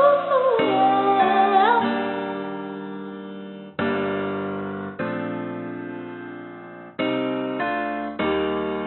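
Background pop music: keyboard chords struck every second or two and left to ring out, after a held note slides down in pitch near the start.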